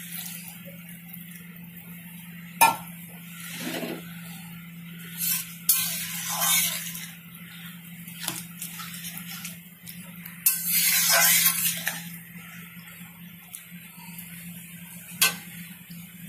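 Flat metal spatula stirring and scraping through wet curry in a karahi, with a few sharp clicks of the spatula striking the pan and a longer scraping stretch about ten seconds in. A steady low hum runs underneath.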